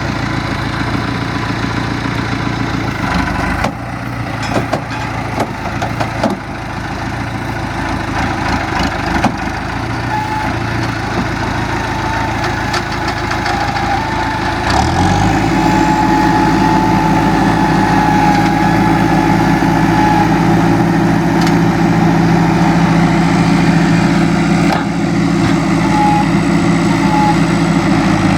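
Diesel farm-machinery engine running steadily, with some knocks and rattles a few seconds in. About halfway through, the engine note changes and settles into a louder, steadier drone.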